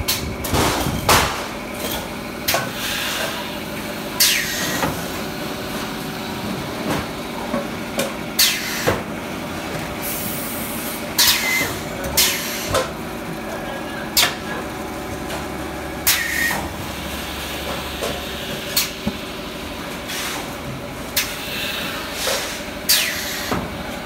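Thermoforming vacuum packing machine running: a steady mechanical hum broken at irregular intervals, every second or two, by short sharp clanks and brief hisses.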